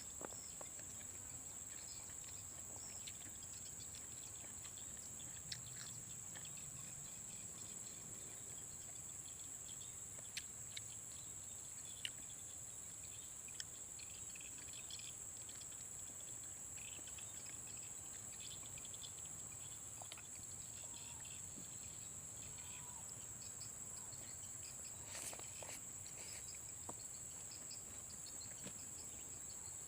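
Rainforest insects keeping up a steady, high-pitched drone, with a few scattered faint clicks and small chirps.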